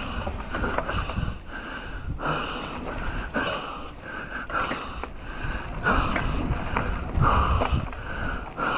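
A person breathing hard in quick, even breaths close to the microphone, a little under two breaths a second.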